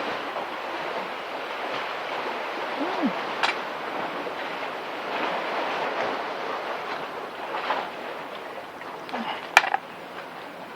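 Waves washing and surging against a seawall, with a couple of sharp knocks, one a little after three seconds in and one near the end.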